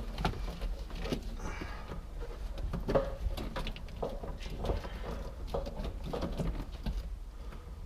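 Irregular light clicks, taps and rustling from dashboard parts and wiring being handled and shifted into place.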